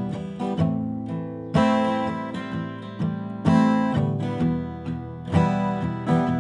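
Acoustic guitar strummed in a steady rhythm, a strong strum about every two seconds with lighter strokes between, playing on without the singing voice.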